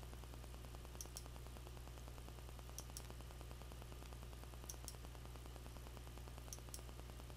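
Computer mouse button clicked in four quick pairs about two seconds apart, over a faint steady low hum.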